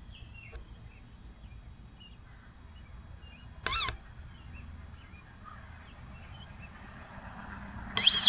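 Sandhill cranes calling: two short calls, one about halfway through and a louder one at the very end.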